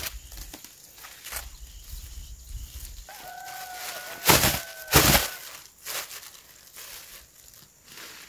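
Thin plastic bag shaken open with two loud flaps, about four and five seconds in, over the rustle of leafy vines being handled. A faint drawn-out call sounds under the flaps.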